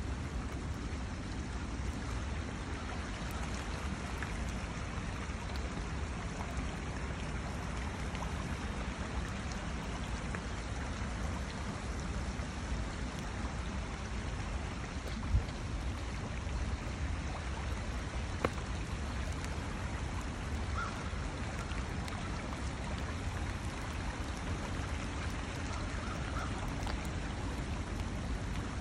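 Heavy rain falling and storm runoff running over the ground, a steady wash of water noise, with two short sharp knocks about fifteen and eighteen seconds in.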